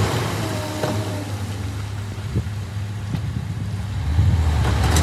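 Large dump truck's diesel engine running steadily with its bed tipped up, with the last of the crushed rock sliding out of the bed during the first couple of seconds. The engine grows louder about four seconds in.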